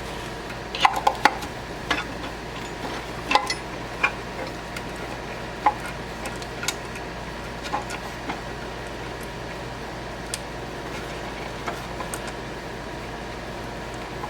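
Scattered small clicks and taps of hands handling wiring connectors and a circuit board, a quick cluster in the first few seconds and sparser ones after, over a steady background hum.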